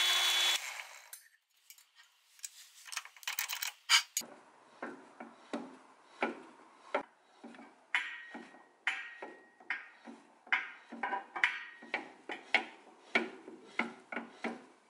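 A drill press motor cuts off about half a second in, followed by a few scattered clicks and a sharp knock about four seconds in. Then a tap, turned by hand in the drill-press chuck, cuts threads into the freshly drilled hole, making short scraping clicks about two a second.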